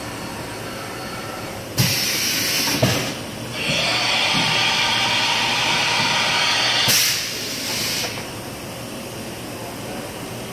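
Milltronics RH-19 CNC mill's carousel tool changer swapping a tool, with compressed air hissing in bursts. A sudden hiss starts about two seconds in, a longer steady blast runs from about four to seven seconds, and a short final burst follows, all over a faint steady hum.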